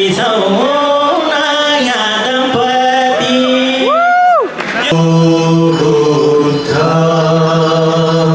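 A man singing into a microphone over a sound system, with his melody sliding between notes and ending on a high note that swoops up and falls away about four seconds in. Just before five seconds it changes abruptly to chant-like music with long held low notes.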